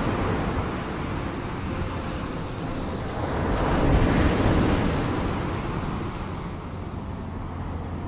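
Pacific surf washing into a rocky cove. The rush of water swells to its loudest about four seconds in as a wave breaks over the rocks, then ebbs away.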